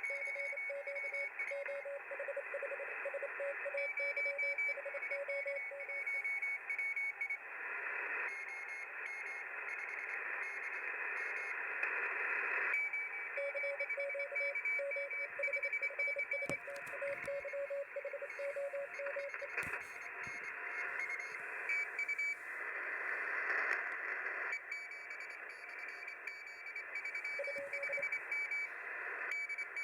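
Shortwave receiver audio from a web SDR: Morse code (CW) signals keyed on and off as short and long beeps over steady band hiss, a lower-pitched and a higher-pitched signal coming and going. A few clicks of static near the middle.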